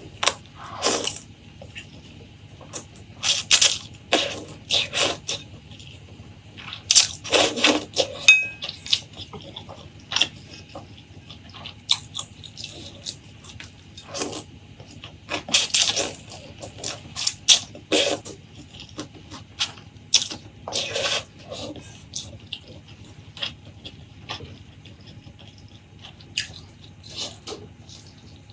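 Close-miked eating sounds: irregular wet chewing and mouth smacks, one every half second to second, some louder than others.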